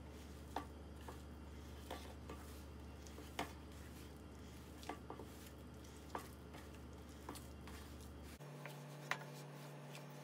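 Hands kneading bread dough in a round metal pan: faint, irregular light taps and knocks of hands and dough against the pan, about one a second. A steady low hum runs underneath and changes pitch about eight seconds in.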